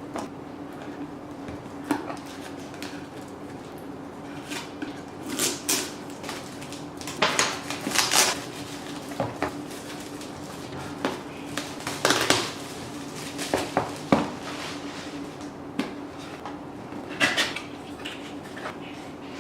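Packaging and small parts being handled and opened: scattered clicks, taps and short rustles at irregular intervals, over a steady low hum.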